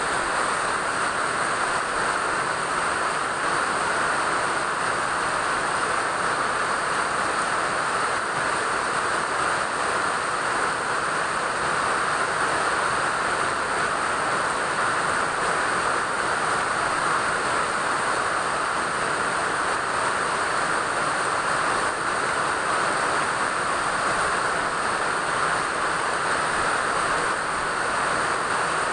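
Steady rain falling, an even hiss with no breaks or single drops standing out.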